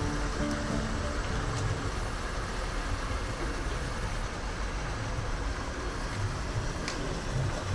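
Hot spring water rushing steadily through a channel beneath the stone steps. Background music fades out in the first second.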